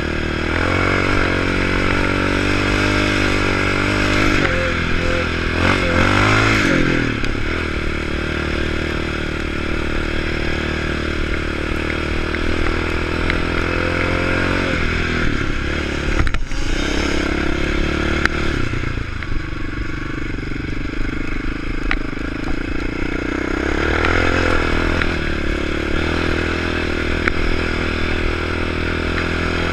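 2006 Yamaha Raptor 700 ATV's single-cylinder four-stroke engine running under throttle while riding, its pitch rising and falling as it speeds up and eases off. There is a sharp break in the sound about sixteen seconds in.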